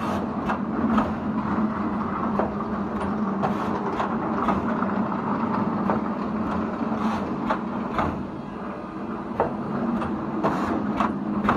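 Automatic chain-making machinery running: a JYB-16 link bending machine and a JYW-250 chain welding machine working links of 12–16 mm grade 80/100 chain. Irregular sharp metallic clicks and clanks over a steady hum.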